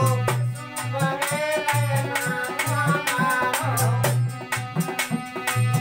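Rasiya folk music: a harmonium plays the melody over a dholak's steady rhythmic drumming, with deep bass strokes recurring every second or so.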